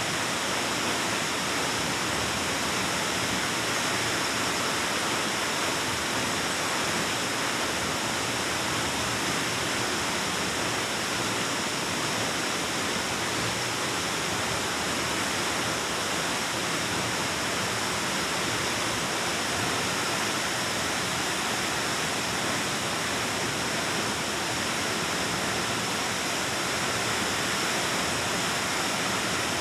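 Waterfall rushing steadily, an unbroken roar of falling water echoing in a cave.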